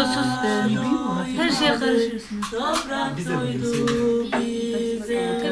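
Several voices, women and children among them, singing a Turkish folk song unaccompanied, with wavering ornamented lines and a long held note near the end.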